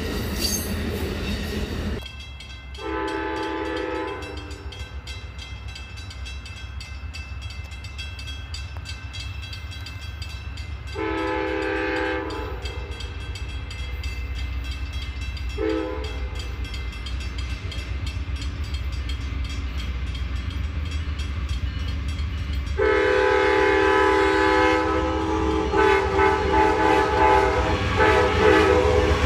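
Amtrak P42DC diesel locomotive's multi-note air horn sounding the grade-crossing signal: long, long, short, then a long held blast as the train draws close. Under it is the low rumble of the approaching train, growing louder near the end. It opens with the last seconds of a bilevel passenger train rolling past.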